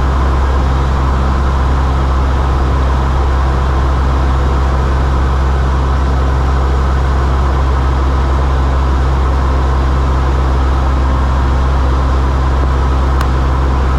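Cessna 172's piston engine and propeller droning steadily, heard inside the cabin as a loud, even, low hum.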